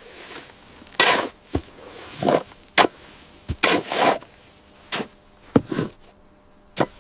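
About ten short, sharp knocks at irregular intervals, some with a brief noisy tail.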